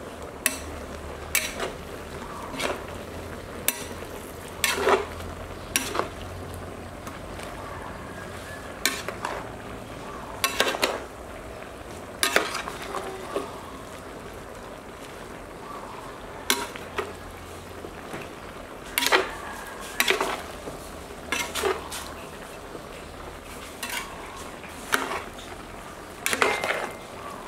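A metal ladle stirring and turning vegetables in a large metal pot, knocking and scraping against the pot at irregular intervals of a second or two, over a steady sizzle of the stir-fry cooking.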